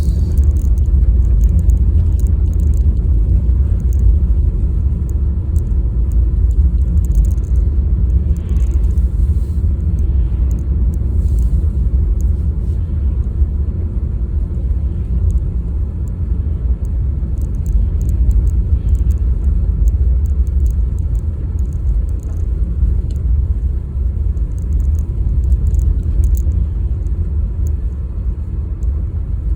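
Car driving with a steady low rumble of road and engine noise.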